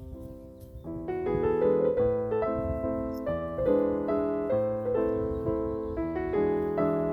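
Background piano music: a gentle melody of single notes that thins out briefly about a second in, then picks up again with a steady run of notes.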